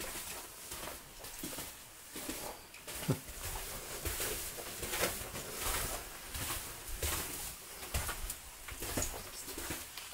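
Footsteps on paper sheeting laid over a corridor floor, each step crinkling the paper, at roughly one step a second, with one heavier thump about three seconds in.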